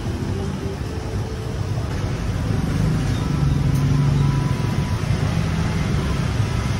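Street traffic with cars and motorbikes passing, a steady engine rumble that swells as one vehicle goes by about three seconds in.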